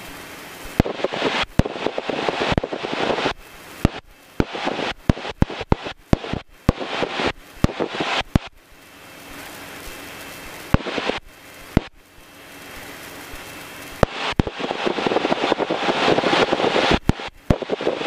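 Crackling static with sharp clicks and abrupt dropouts, cutting in and out irregularly over the steady cabin noise of a Cessna 150 in flight. The crackle is thickest in the first few seconds and again near the end, and eases to the plain steady cabin drone for a few seconds in the middle.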